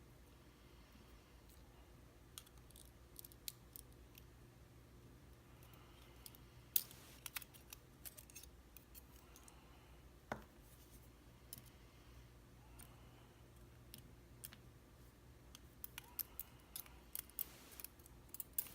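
Scattered small metal clicks and taps from gutting a Mul-T-Lock Classic cylinder, with pins and springs being taken out. One sharper knock comes about ten seconds in, and a quicker run of clicks comes near the end.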